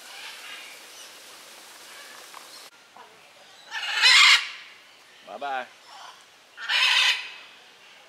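Parrots screeching: two loud, harsh squawks about three seconds apart, with a shorter, lower falling call between them.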